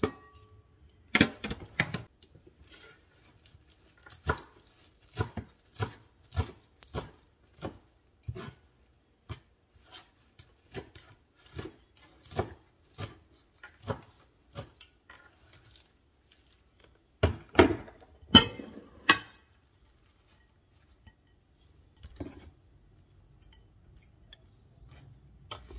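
Knife chopping arugula on a wooden cutting board: a run of sharp knocks, a little under two a second, then a short, louder clatter about two-thirds of the way through.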